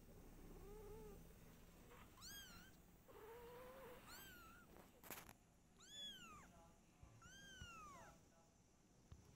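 Faint kitten mewing: several short, high, thin mews that rise and fall, a second or two apart, mixed with a couple of lower, softer mews. A single sharp click comes about five seconds in.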